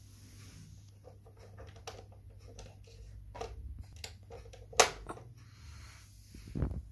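Small clicks and taps from a hand handling the rear deck of a 1/16 scale Tiger I RC tank, with one sharp, louder click a little past halfway, over a steady low hum. A short low rumble rises near the end.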